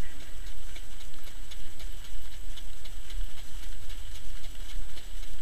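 Hooves of harness-racing trotters beating on a dirt track in a steady, quick run of clip-clops, heard from the sulky behind the horse, over a steady low rumble.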